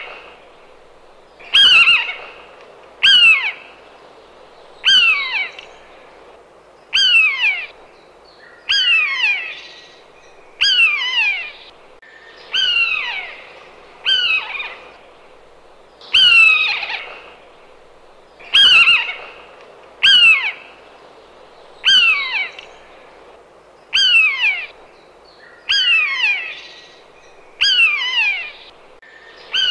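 Common buzzard crying over and over, each cry a short, loud call that slides down in pitch, about one every two seconds.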